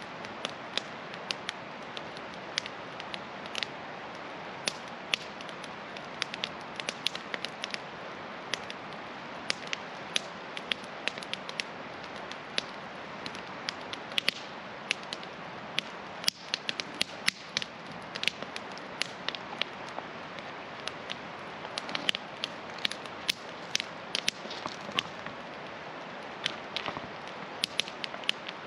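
Wood campfire crackling, with many sharp irregular snaps, over the steady rush of a mountain river.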